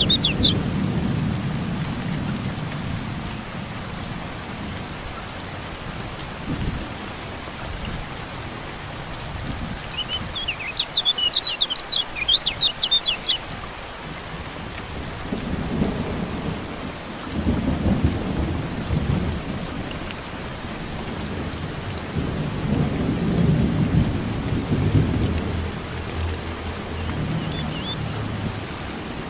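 Steady rain with thunder rumbling several times, heaviest in the second half. About ten seconds in, a kecial kuning white-eye gives a quick burst of high twittering chirps lasting about three seconds.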